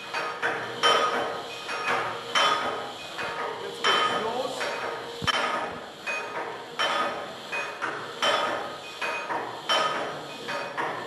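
Hand-operated pre-lubrication oil pump on a six-cylinder Deutz submarine diesel being worked by its lever, a metallic clack with a short ring about every one and a half seconds. This is oil being pumped to all the bearings to build oil pressure before the engine is turned over.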